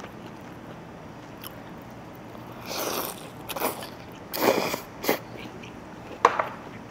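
Close-miked eating noises: a few short, loud mouth sounds between about three and five seconds in, then a sharp clink near the end.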